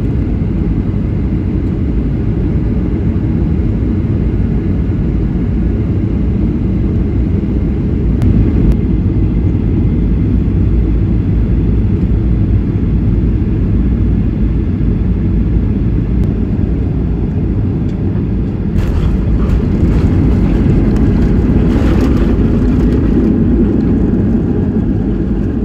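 Jet airliner cabin noise heard from a window seat during the night descent: a steady, deep rumble of engines and airflow. It grows louder and rougher in the last several seconds as the plane nears the runway.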